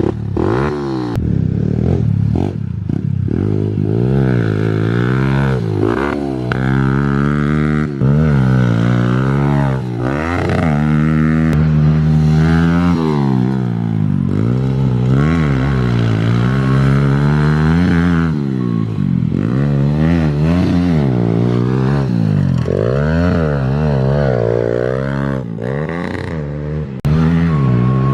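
Kawasaki KLX110 pit bike's small single-cylinder four-stroke engine, breathing through a cut-down Pro Circuit exhaust, being ridden hard: the revs climb and drop again and again, every second or two.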